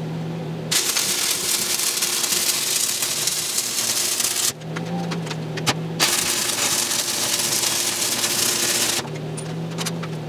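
Stick (arc) welding with 7014 rod: the arc crackles and sizzles steadily in two runs, starting about a second in and stopping abruptly, then again after a short break, with a low steady hum in the pauses.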